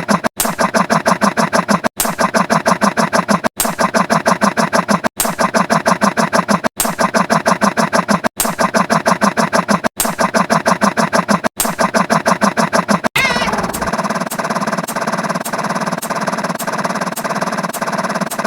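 A looped sound effect: a fast-pulsing, buzzy pitched sound clip replayed about eight times, each repeat roughly a second and a half long and cut off abruptly. About thirteen seconds in it switches to a different steady buzzing effect with a quick even ticking.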